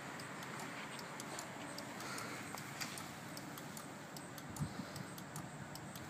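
Motorcycle turn-signal flasher ticking faintly in a steady, fast rhythm while the custom LED bar-end indicators blink.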